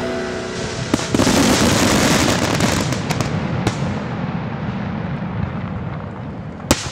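Fireworks display: aerial shells bursting, with dense crackling. There is a sharp bang about a second in, more bangs a few seconds later, and two sharp cracks near the end.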